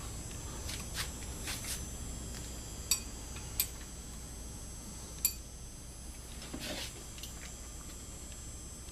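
A hand tool clinking and tapping on metal as loose screws on a Harley-Davidson motorcycle engine are tightened to stop an oil leak. There are scattered light taps, three sharper ringing clinks around the middle, and a soft scrape near the end.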